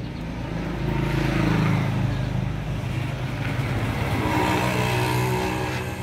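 A motor vehicle engine runs with a steady low hum, swelling louder about a second in and again near the end, as if vehicles are passing.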